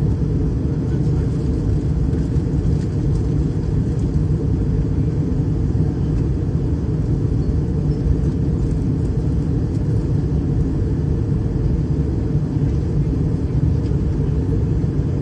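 Steady low rumble of an Airbus A320-211 in flight on approach, the engine and airflow noise of the aircraft, even and unchanging throughout.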